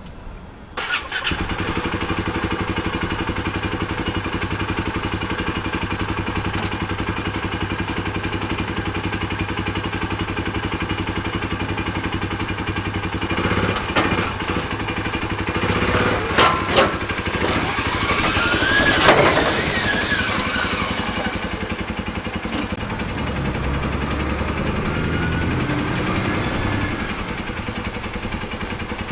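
A vehicle engine starts about a second in and then runs steadily. Around the middle come a few knocks and a whine that rises and then falls.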